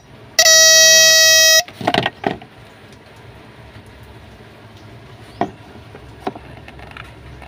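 A vehicle's electric horn sounding once in a steady single-pitched blast of just over a second, followed by a few light clicks and knocks.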